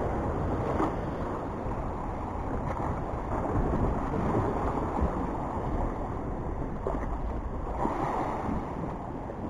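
Steady wind buffeting the microphone over the sea washing against the rocks below, with a few faint clicks.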